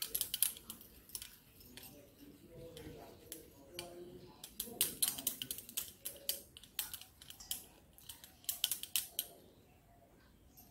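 Hands pinching off and rolling stiff dough into balls over a steel bowl: soft irregular clicks and taps of fingers and dough against the metal, with short pauses between.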